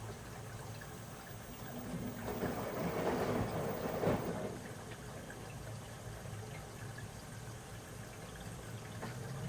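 Washing machine running with a steady low rumble. About two seconds in, a rush of water noise swells for a couple of seconds and then fades back into the rumble.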